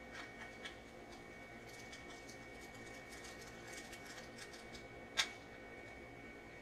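Faint scattered clicks and light taps of a precision screwdriver and small parts on an opened laptop, with one sharper click about five seconds in, over a steady faint hum.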